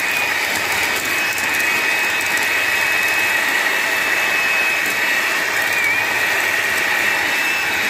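Moulinex Easy Max electric hand mixer running at a steady speed, its beaters whipping eggs and sugar until frothy, with a steady high motor whine.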